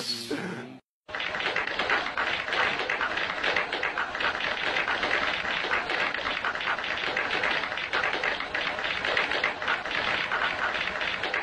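Audience applauding: a dense, steady clatter of many hands clapping, starting suddenly about a second in.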